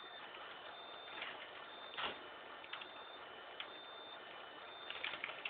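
A high-pitched electronic beep tone that comes and goes, sounding near the start and again about four and a half seconds in, over a steady hiss. Scattered clicks and ticks between the beeps, the loudest a sharp click about two seconds in.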